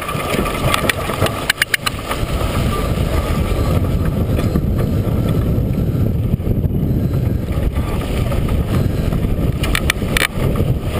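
Wind buffeting the microphone over water rushing along the hull of a sailboat under way in chop. A few sharp clicks come about a second and a half in and again near the end.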